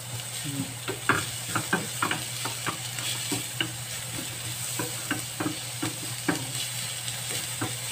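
Chopped onion and garlic sizzling in a little olive oil in a small frying pan while a wooden spatula stirs them, scraping and tapping the pan in quick, irregular clicks. The onion is being sautéed until translucent. A steady low hum runs underneath.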